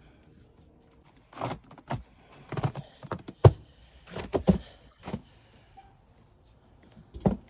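Footsteps crunching through snow: a string of uneven crunches, then a pause and another crunch near the end.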